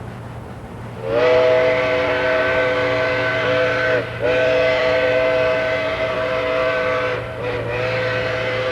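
Steam whistle of a Baldwin 2-8-2 steam locomotive blowing three long blasts as a chord of several notes. The first starts about a second in, brief breaks separate the blasts, and the last is still sounding at the end.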